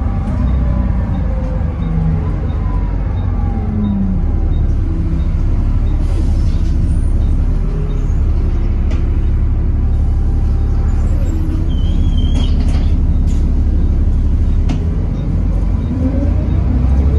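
On board a Volvo B7TL double-decker bus on the move: its Volvo D7C six-cylinder diesel and ZF Ecomat automatic gearbox are running. The engine note falls over the first few seconds and climbs again near the end as the bus accelerates.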